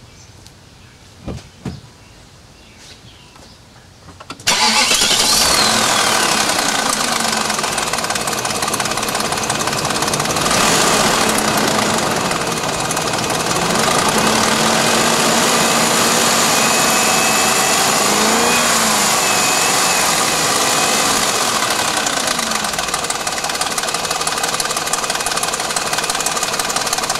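BMW 740iL's 4.4-litre V8 starting about four seconds in, then running and revved up and down several times. A ticking from the engine, which the owner suspects comes from worn timing-chain guides or the VANOS unit, is the point of the recording.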